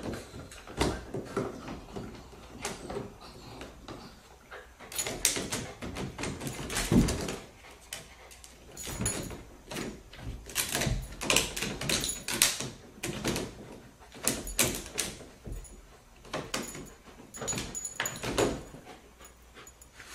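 A corgi scrambling up and over a wood-and-plastic-mesh baby gate: repeated clusters of knocks, rattles and scrapes as the gate shakes under its weight and its claws, loudest about seven seconds in.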